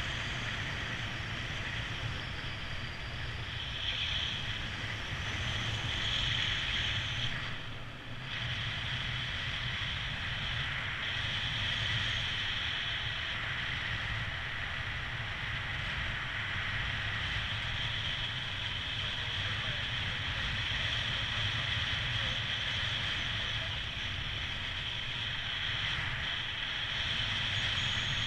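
Steady wind rushing over the camera microphone of a paraglider in flight, a low rumble with a hiss above it, briefly dipping about eight seconds in.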